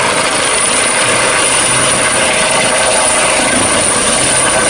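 Helicopter sound: steady rotor and engine noise that starts abruptly and holds at an even level.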